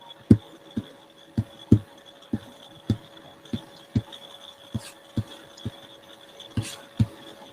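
A run of dull, low thumps, about two a second and fairly even, over a faint steady hum.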